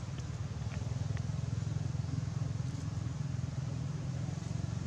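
Steady low rumble of an engine running without change, with a few faint ticks over it.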